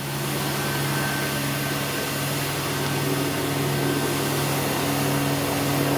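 Steady hum and rushing hiss of a running gas burner and its blower, with a second, higher hum joining about three seconds in.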